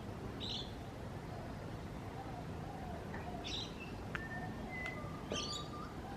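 Garden birds calling at dawn: three short, high chirps a couple of seconds apart, over fainter, lower wavering calls from other birds and a steady low background noise.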